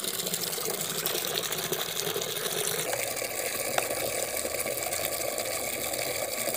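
A steady rushing, whirring noise runs throughout. A cat meows faintly once, a little before the middle.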